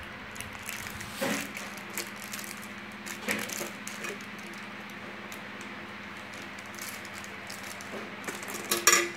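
Soft, scattered crinkling and rustling of a plastic toy wrapper being handled and unwrapped, a little louder about a second and about three seconds in, over a faint steady hum.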